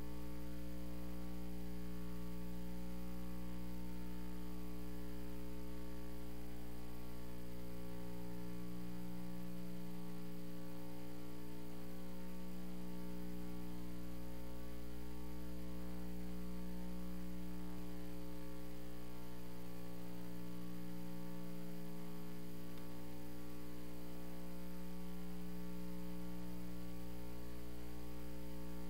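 Steady electrical mains hum, a low drone with a row of overtones that does not change.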